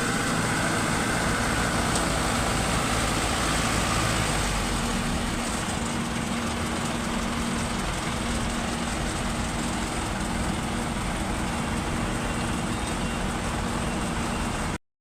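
Concrete pump's diesel engine running steadily under load with a continuous hum, cutting off abruptly near the end.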